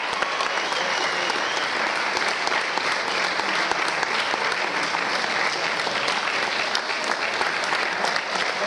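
Audience applauding steadily: many hands clapping together without a break.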